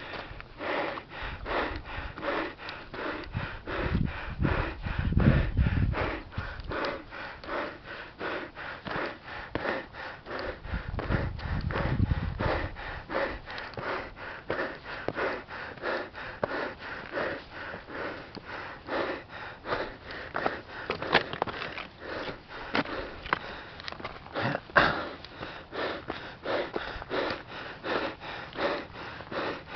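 A man's heavy, fast breathing, out of breath from a steep climb, in a quick even rhythm of about two to three breaths a second. A few low rumbles come through in the first half.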